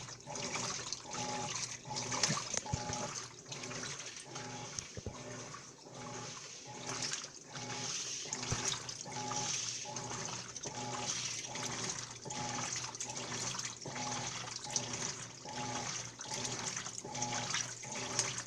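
Washing machine running a cycle, with water rushing and sloshing inside and a hum that pulses on and off about every two-thirds of a second.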